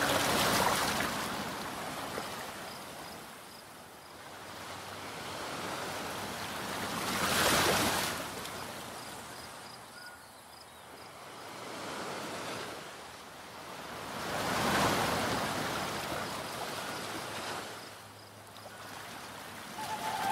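Waves washing onto a shore, each surge swelling and fading away, about every seven seconds.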